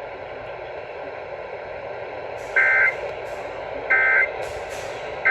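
Emergency Alert System end-of-message data bursts over radio static: after a few seconds of steady hiss come three short, identical two-tone digital screeches about a second and a half apart, the third starting right at the end. They mark the end of the broadcast flash flood warning.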